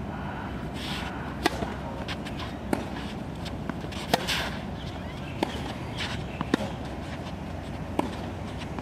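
Tennis balls struck by a racket and bouncing on the court during a baseline rally: a sharp pop every second or so, with a brief swish of the racket or scuffing shoes, over steady background noise.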